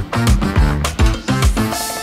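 Upbeat background music with a steady drum beat, about three to four beats a second; near the end the beat drops out and a held chord rings on.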